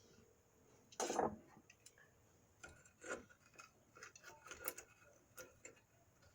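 Irregular light clinks and knocks of hand tools and brake hardware being handled during a drum brake job, the loudest about a second in and a scattered run of smaller ones after it.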